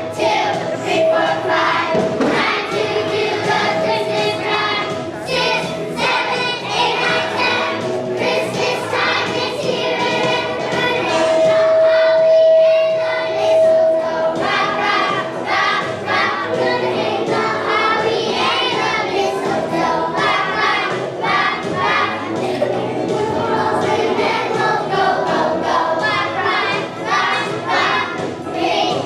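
A choir of young children, kindergarten to second-grade age, singing a Christmas song with musical accompaniment, with one long held note about halfway through.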